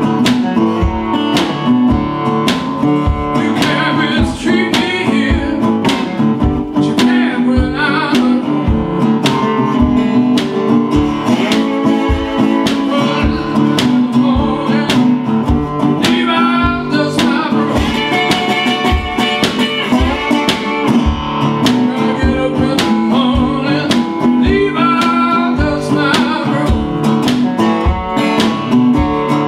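Resonator guitar played in acoustic Delta blues style, with a steady thumbed bass beat under the picked notes.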